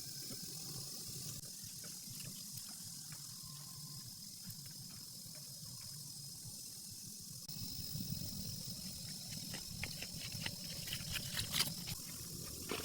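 Rain falling steadily, with scattered drips and splashes that grow denser and louder in the last few seconds.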